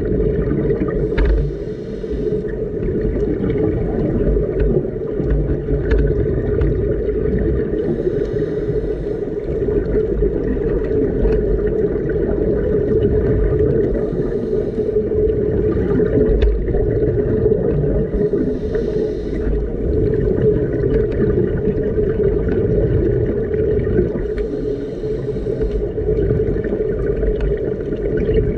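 Underwater sound of a diver breathing through a scuba regulator, with a burst of exhaled bubbles about every five to six seconds, over a steady low hum.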